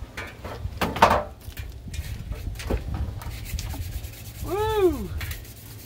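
Old radiator scraping and rubbing against the engine bay and mounts as it is lifted out of a 2002 Jeep Grand Cherokee, with irregular scrapes, the loudest about a second in, and a few knocks. Near the end there is one brief squeak that rises and then falls in pitch.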